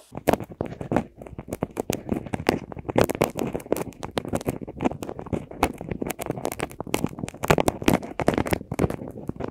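Two long thin sticks rapidly scraping and tapping on a pair of microphone capsules, making close-up ear-cleaning ASMR sounds: a dense, irregular run of scratchy clicks and rasps that starts just after the beginning.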